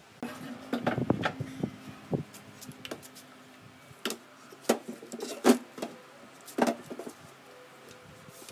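Knocks and bumps of pine boards being handled, as a hinged wooden lid is moved against its box. A cluster of knocks comes in the first two seconds, then single sharp knocks between four and seven seconds in, the loudest about five and a half seconds in.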